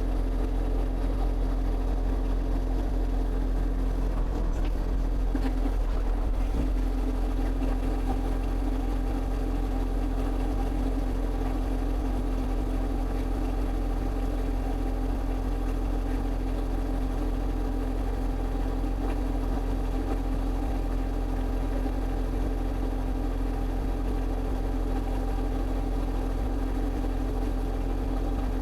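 Excavator engine running steadily at a constant speed, with an even low hum.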